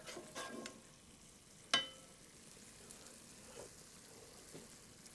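Cream sauce for Bœuf Stroganoff simmering with a faint sizzle in a frying pan on a gas hob. A metal spoon clinks once, with a short ring, nearly two seconds in.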